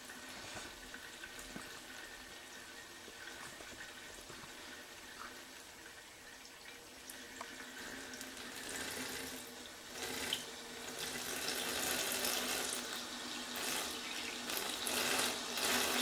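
Canister vacuum cleaner motor and impeller running submerged in a tub of water, churning the water over a steady hum. The churning grows louder from about eight seconds in as the motor gains speed.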